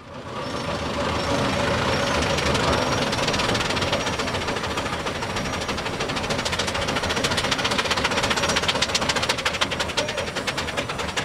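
Steam-powered pile driver's hoisting engine running with a rapid, rattling knock, the beat growing more distinct near the end.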